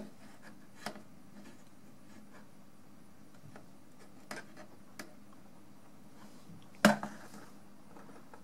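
A few light clicks and taps as a digital caliper is handled and held against the microscope stand's plastic base, with one louder knock near the end and low room noise in between.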